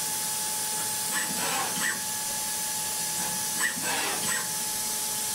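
Datron CNC milling machine running: a steady hiss under a steady high whine, with whines sweeping down and back up about a second in and again near four seconds as the head makes quick moves.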